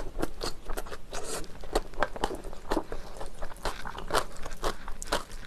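Close-miked mouth chewing a spoonful of jjajang rice with chopped Cheongyang chili peppers: a string of sharp, irregular mouth clicks, several a second.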